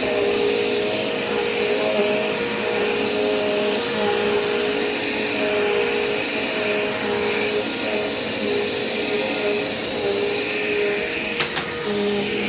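Dirt Devil Quick Power vacuum cleaner running steadily, its motor noise carrying a thin high whine. A short click sounds near the end.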